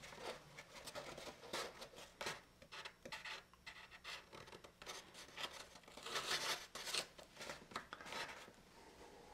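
Thin cardstock rustling and scraping against a foam-board fuselage as it is handled, wrapped around and pinned in place: irregular short scratchy rubs.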